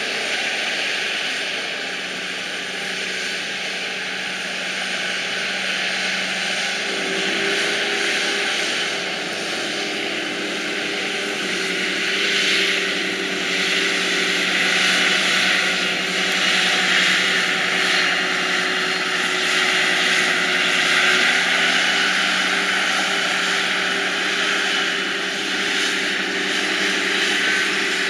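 Heavy farm machinery at work harvesting silage: tractor and harvester engines running steadily under load over a loud rushing whine, the engine hum growing stronger about seven seconds in.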